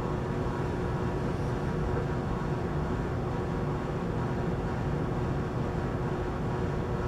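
Steady mechanical hum and hiss of background room noise, such as a ventilation fan, with a faint constant tone and no distinct handling noises.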